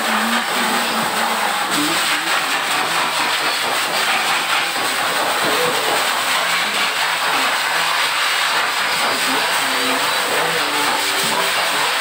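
Hose-fed pet grooming blower dryer blowing air through its nozzle onto a small dog's wet coat: a steady, loud rush of air.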